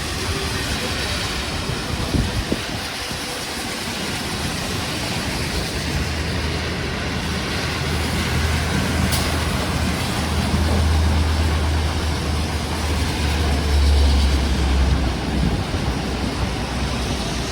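City street traffic: a steady low engine rumble that swells in the second half, over a constant hiss.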